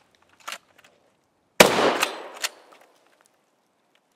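Pump-action shotgun: a few sharp clacks as the slide is worked to clear a staged stovepipe malfunction, then a single shotgun shot about a second and a half in that echoes away over about a second. Two more clacks of the action come during the echo.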